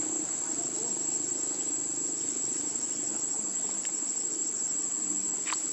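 Steady, high-pitched drone of insects in the undergrowth, unbroken throughout, with one brief sharp sound near the end.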